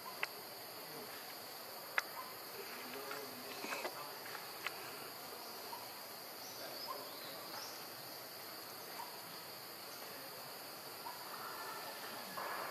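Steady high-pitched drone of insects chirring in the background, with a few sharp clicks, the loudest about two seconds in, and some faint short chirps.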